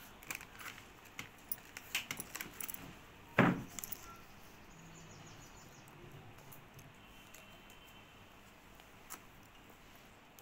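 A steel spoon clinking against a metal cooking pot: a string of light clinks over the first three seconds, then one much louder clank about three and a half seconds in.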